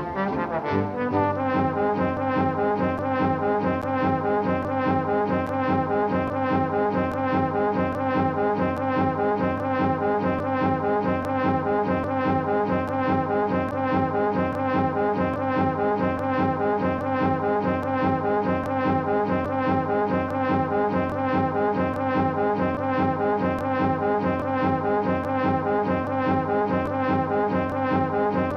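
Looped cartoon sound effect: a trombone-like brass tone stuttering in a rapid, even pulse, repeating without change.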